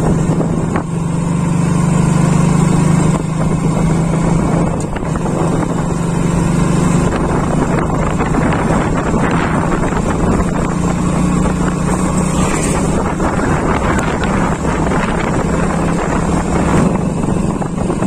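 Motorcycle engine running steadily while riding at road speed, its low hum holding even, with wind rushing over the microphone.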